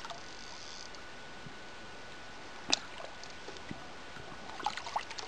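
Quiet lapping of lake water, with one sharp click about halfway through and a few faint short sounds near the end.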